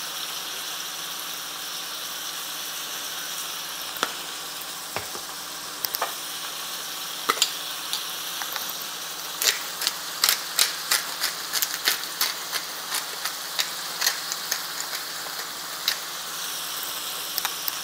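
Ground beef sizzling steadily in a frying pan, with a run of sharp irregular clicks and taps that starts about a quarter of the way in and is busiest in the second half.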